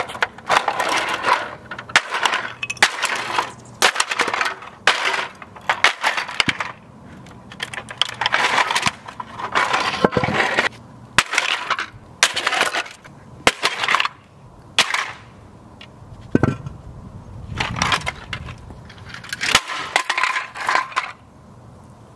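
Plastic toy van being smashed with a concrete cinder block: many sharp impacts in clusters, with plastic cracking and breaking. The impacts stop about a second before the end.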